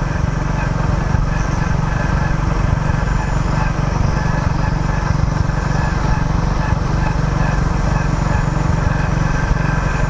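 Motorcycle engine running steadily at cruising speed on the open road, a constant drone that does not rise or fall.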